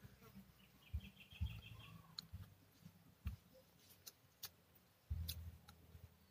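Faint chewing with sharp mouth clicks from someone eating by hand, broken by a few low thumps. A short, faint bird trill comes in about a second in.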